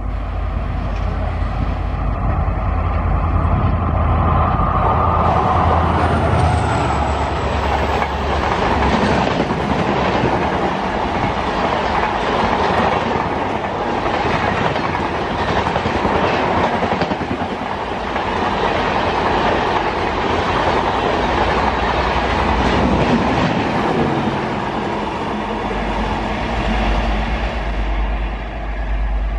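Express passenger train passing at high speed behind a WDP-4D diesel locomotive. A deep engine hum is heard as it approaches. Then the coaches rush past with a fast clickety-clack of wheels over rail joints, easing off near the end as the train pulls away.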